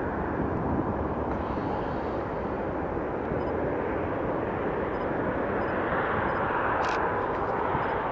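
Bombardier CRJ-900 regional jet on final approach, its two turbofan engines a steady rushing noise that grows a little louder and brighter as the jet draws nearer. A short click near the end.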